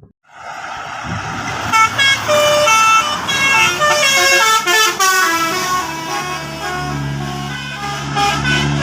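Bus 'telolet' horn playing a fast tune of stepped notes, starting about two seconds in, over the noise of the bus's engine. The engine hum grows louder and steadier in the second half.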